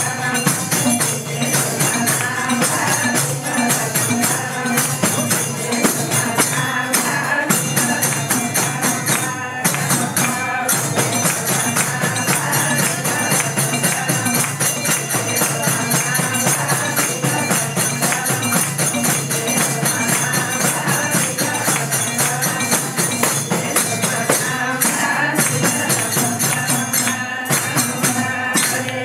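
Bhajan devotional music played live: a fast, steady beat on jingling hand percussion with pitched melody over it.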